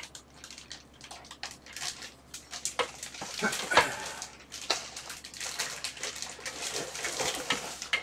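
Plastic bag crinkling and cardboard packaging rustling as a desktop computer tower in a plastic bag is worked loose and lifted out of its shipping box, with scattered light knocks and scrapes.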